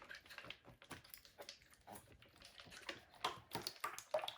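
Jiggly slime being squeezed and worked in the hands, giving faint, irregular small clicks and squelches.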